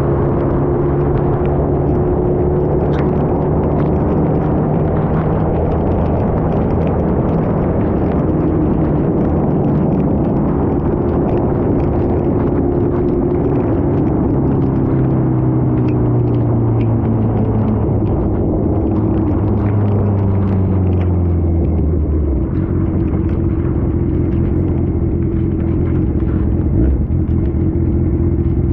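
Superbike engine running at low revs as the bike rolls slowly, its pitch sinking gradually for about twenty seconds and then holding steady, under a constant rush of wind and rain noise.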